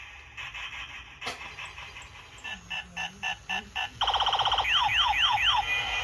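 Electronic sound effects from a battery-powered toy pistol: a run of quick beeps, then a rapid buzzing tone and four falling laser-style zaps, like a siren.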